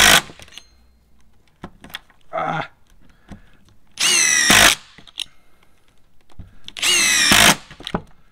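Ryobi P239 brushless impact driver driving screws into a wooden board in short bursts. Each burst rises in pitch as the motor spins up. One ends just as the sound begins, a brief weaker one comes about two and a half seconds in, and two full bursts of about half a second come near four and seven seconds in.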